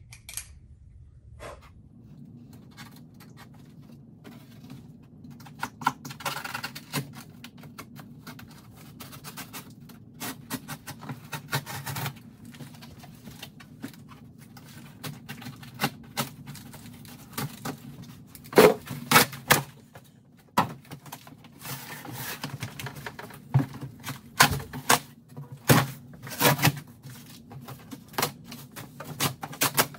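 Cardboard box and plastic wrap being handled during unboxing: irregular crinkling, scraping and knocks, louder in short clusters, over a steady low hum.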